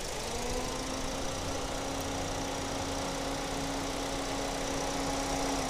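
A motor hums steadily at one pitch for about five seconds, rising in pitch as it starts and falling away as it stops.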